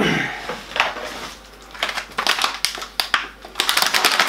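Plastic food packaging rustling and crinkling as a meat pack is pulled out of a delivery box, in irregular crackles with a dense run of crinkling near the end.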